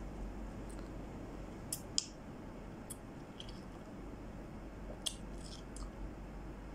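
A knife cutting a piece off a flat peach, with a few sharp clicks, then wet chewing and mouth clicks as the piece is eaten, over a steady low hum.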